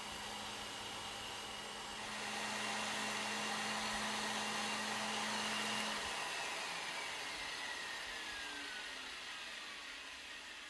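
Milwaukee sander fitted with a Scotch-Brite buffing pad running on aluminium spoke nipples, a steady motor whir that gets louder about two seconds in. About six seconds in the motor hum cuts out and a whine falls slowly in pitch as the pad spins down.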